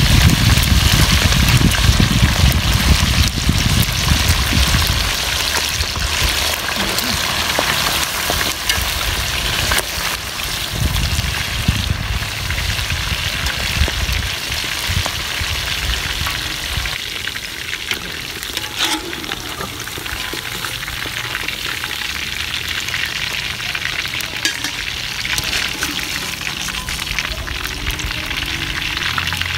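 Chicken pieces deep-frying in hot oil in a wide aluminium pan: a steady sizzle with dense crackling, loudest over the first few seconds, when fresh pieces have just gone in and a low rumble runs under it.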